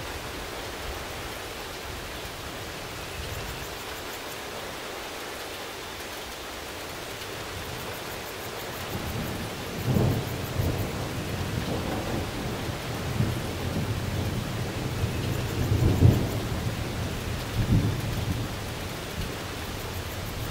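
Steady rain, with rolling thunder that builds in about halfway through. The thunder swells into several louder low rumbles, the strongest a little after the middle, before it eases off near the end.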